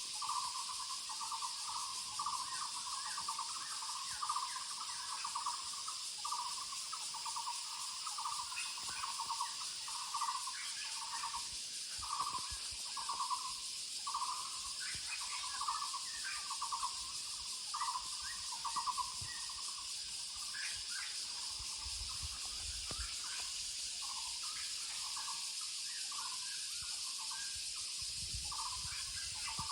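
Muller's barbet (Taiwan barbet) calling: a low, rapidly pulsed note repeated about once a second, on and on. Behind it is a steady high insect drone.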